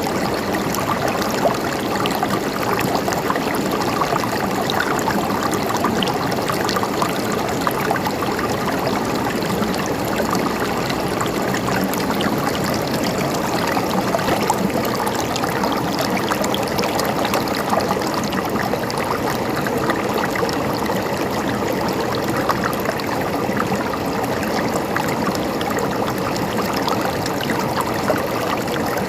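River water flowing steadily over stones, a continuous gurgling and rushing.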